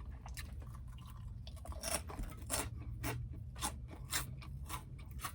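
A person chewing crunchy food, with irregular crunches about two or three times a second.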